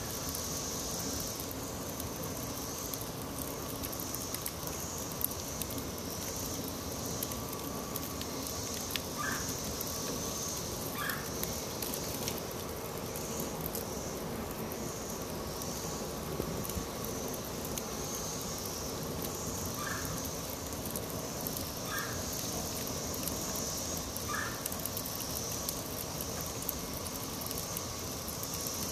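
Scrap lumber burning in an outdoor fireplace, the wood fire crackling and popping with frequent small snaps. Behind it runs a steady, high-pitched insect drone that swells and fades, and a few short chirps come through now and then.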